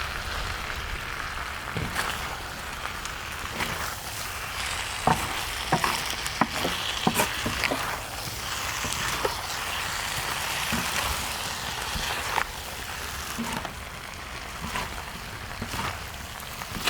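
Spicy chicken dak-galbi sizzling steadily on a cast-iron cauldron-lid griddle, with a cluster of sharp clicks and scrapes about five to eight seconds in.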